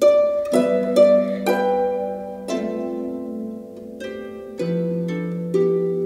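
Background music of plucked-string notes, a new note every half second or so, over held lower notes.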